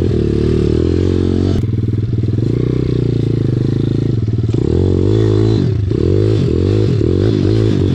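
SSR 170TX pit bike's small single-cylinder four-stroke engine running while being ridden, the revs fairly steady at first and then rising and falling over and over in the second half as the throttle is worked.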